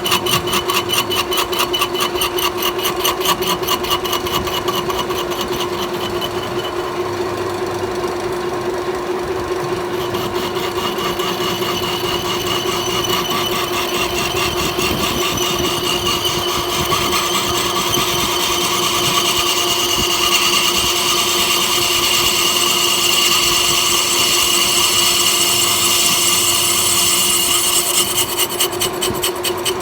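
Metal lathe running with a steady hum while the cutting tool works the spinning workpiece, a continuous scraping cut. A fast, even rattle sounds through the first several seconds and again near the end.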